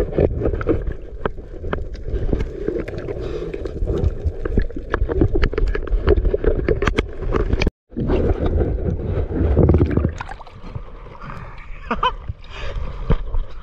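Sea water splashing and sloshing around a small fishing boat: a steady rush of noise broken by many small splashes. The sound drops out for an instant about halfway through.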